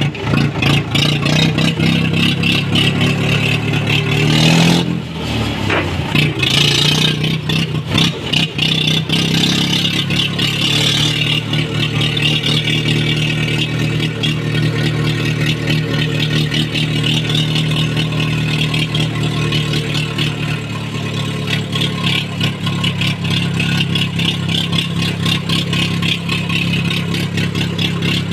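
Mahindra tractor's diesel engine running with a rapid, even exhaust beat, revved up and down a few times in the first ten seconds or so, then held at a steady speed.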